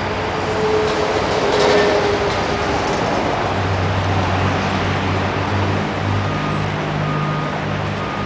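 A steady low engine hum over a constant noisy background, the hum growing stronger about three and a half seconds in.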